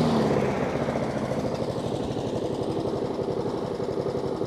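Honda single-cylinder four-stroke lawnmower engine running, dropping from a higher speed in the first second to a slower, even, pulsing idle as the throttle is brought down.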